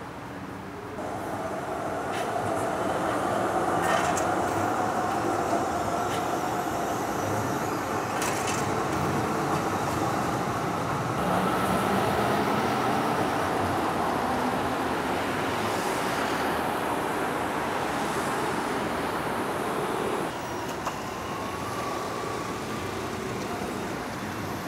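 A city tram rolling along a stop: a steady rumble of wheels on rails and running gear, carrying a held whine and a few clicks. The sound drops away about twenty seconds in.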